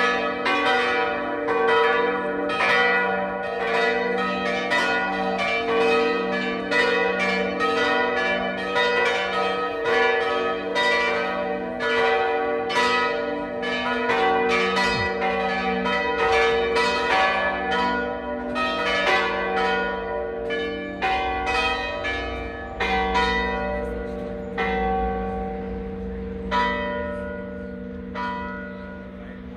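Full peal of four church bells, Oberascher post-war bells tuned g', b', d'', e'' and out of tune, swinging with overlapping strokes and long ringing tones. In the last third the strokes thin out and the level falls as the bells ring down, leaving a few single strikes near the end. A low rumble runs underneath in the second half.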